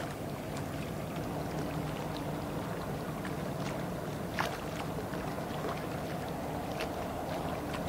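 Low, steady drone of ship engines running as the vessels pass, over the wash of water and wind noise. A few short clicks are scattered through it, the sharpest about four and a half seconds in.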